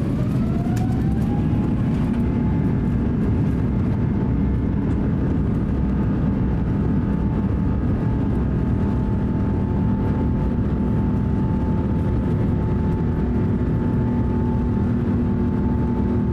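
Airbus A350-900's Rolls-Royce Trent XWB jet engines spooling up to takeoff thrust, heard from inside the cabin: a whine rises in pitch over the first second or two, then holds steady over a loud rumble through the takeoff roll on a wet runway.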